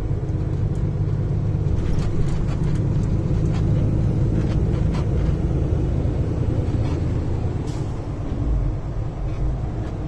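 Steady drone of a semi-truck's diesel engine and road noise inside the cab while driving, with a few faint clicks.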